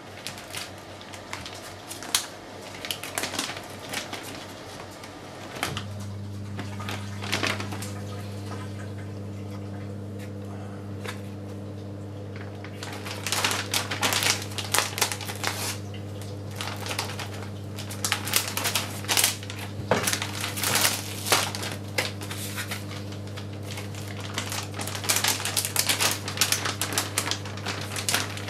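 Clear plastic sous vide bag crinkling and rustling in the hands as pork fillets and butter are slipped into it, in dense crackly bursts that grow louder from about thirteen seconds in. A steady low hum starts about six seconds in and carries on underneath.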